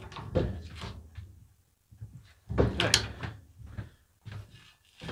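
Metz 8-inch deep-throat shrinker stretcher being worked by hand: a run of metallic clunks and knocks as the lever is pulled, the stretching jaws grip and stretch a 1.4 mm sheet-metal flange, and the strip is shifted between strokes. The loudest clunks come about two and a half to three seconds in.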